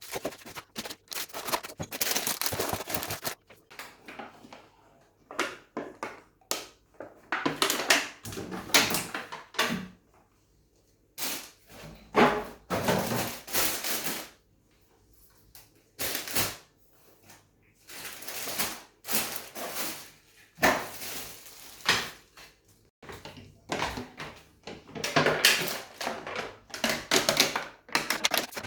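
Groceries being handled and set into a fridge: irregular rustling of packaging and knocks of containers and shelves, with short pauses between.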